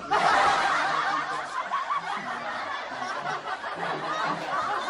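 A group of people laughing, many voices overlapping, starting abruptly and going on steadily.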